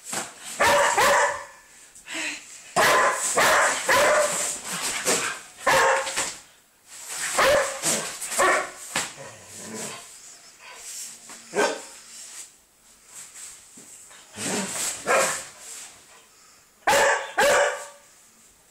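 Small dog barking in short volleys of a few barks each, with pauses of a second or two between them.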